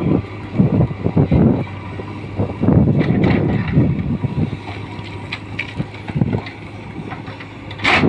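JCB 3DX backhoe loader's diesel engine running under load as the bucket digs into a rocky slope. Loose rocks clatter about three seconds in, and a sharp crash of rock comes right at the end as a boulder is shoved down.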